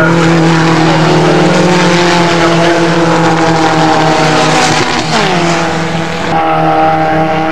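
Race car engines running hard as cars go past on the circuit. About five seconds in, one engine's pitch drops as it passes, and the sound changes abruptly just after six seconds.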